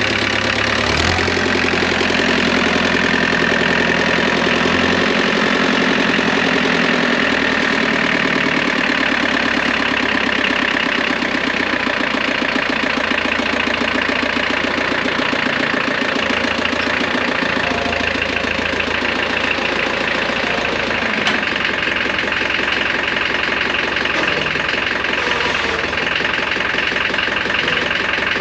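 McCormick D-430 tractor's diesel engine running steadily.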